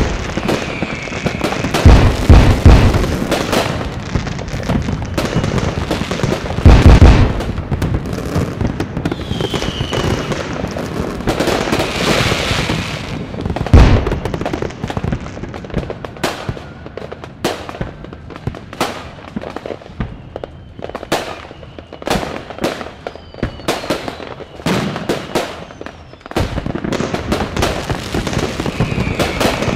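Many fireworks going off at once: a continuous crackle and popping of bangs, with several heavy booms about two, seven and fourteen seconds in. The bangs thin out somewhat in the middle and grow dense again near the end.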